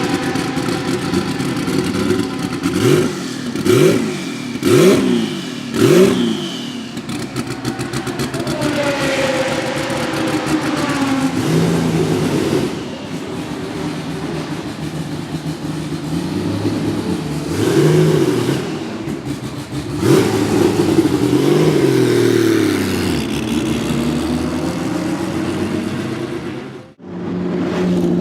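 Porsche 935 K3 Kremer race car's twin-turbo 3.2-litre engine, revving hard with its pitch climbing and falling through the gears. A run of about four loud exhaust bangs comes between about three and six seconds in, each with a sharp dip and rise in engine pitch.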